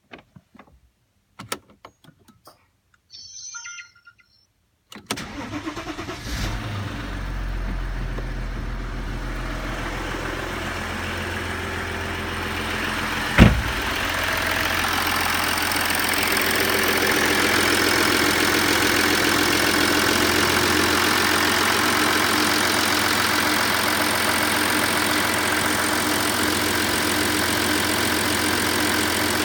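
Cold start of an Audi 2.7 TDI V6 diesel engine, fully cold. After a few clicks and a short high sound, it cranks and catches about five seconds in, then runs on at a steady idle. A single sharp knock stands out a little before halfway.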